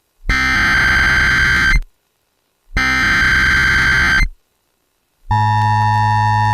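Emergency Alert System SAME header: two loud bursts of warbling digital data tones, each about a second and a half long, with a second of silence after each. About five seconds in, the steady, buzzy two-tone EAS attention signal begins.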